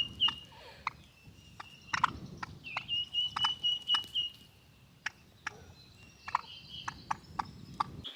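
Poultry calling with a high, wavering trill that comes and goes several times, over many sharp taps and clicks around the feeder.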